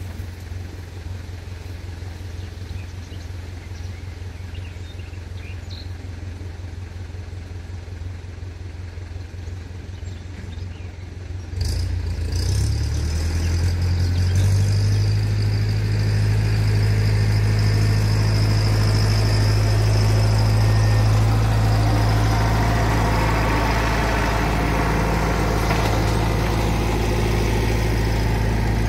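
Fendt tractor's diesel engine idling steadily. About twelve seconds in it revs up and runs louder as the tractor drives up towing a hay loader wagon.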